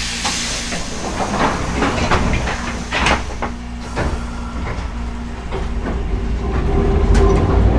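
Hankai Mo 161 tram with nose-suspended drive moving off. A hiss of air fades in the first second, the wheels knock and clack over points and rail joints, and near the end the traction-motor hum grows louder as the car takes power.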